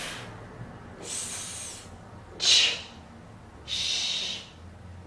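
A woman's voiceless consonant sounds hissed one at a time with no voice behind them: an "s", a short, sharp "ch", then a longer "sh", each about a second apart, demonstrating unvoiced consonants.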